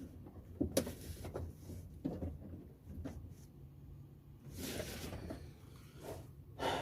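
A few light clicks and knocks of hand work on a truck door's lock cylinder, scattered over several seconds, as the cylinder is pressed and tapped with a screwdriver to sit flush.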